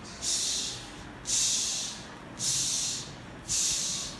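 A voice repeating the phonics 'ch' sound four times at an even pace, about one a second, in imitation of a chugging steam locomotive.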